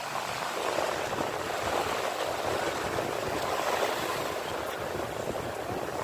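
Sea waves washing in: a steady rushing of surf with no distinct breaks.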